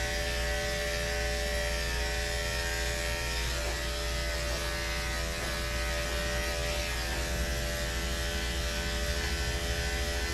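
Andis corded electric grooming clipper running steadily, a constant buzzing hum, as it is worked over a dog's belly to shave the coat.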